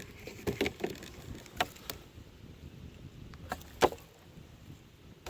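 Irregular knocks and taps on a plastic kayak hull, some close together and a louder pair in the second half.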